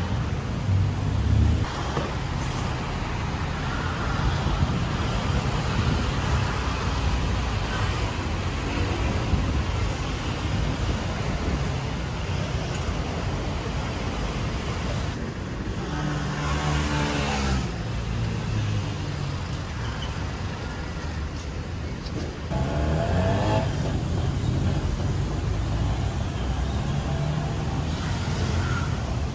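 Road traffic noise: a steady hum of passing cars and other vehicles, with louder vehicles going by about halfway through and again near the end.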